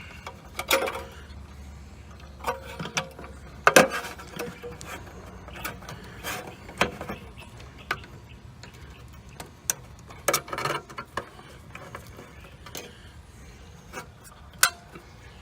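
Irregular metallic clicks, clinks and knocks of tools, a screw and a run capacitor's bracket being handled against the sheet-metal cabinet of a York air-conditioning condenser as the capacitor is refitted. Several louder knocks stand out, about a second in, near four seconds and around ten seconds.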